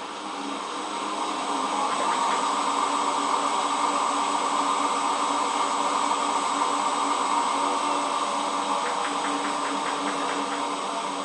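Hotpoint Ultima WT960 washing machine spinning, a loud steady drone and whine that builds over the first couple of seconds and holds, with a run of fast ticks near the end. The noise is that of worn drum bearings, which the owner believes are gone.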